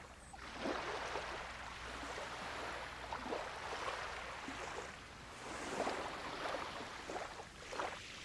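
Seawater rushing and splashing, with a few louder surges.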